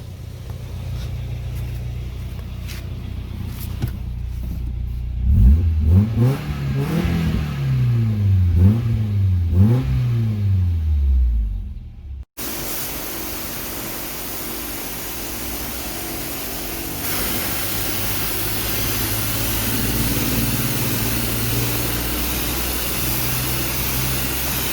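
Nissan 240SX engine idling steadily, then revved up and down several times before dropping back. After about twelve seconds the engine sound cuts off sharply and gives way to a steady hiss with a low hum.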